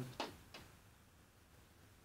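A couple of faint computer mouse clicks just after the start, then near-silent room tone.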